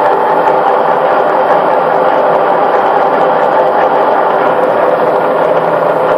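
Pillar drill motor running steadily while its bit is fed down into a workpiece, a steady hum with no change in pitch; the bit is going blunt.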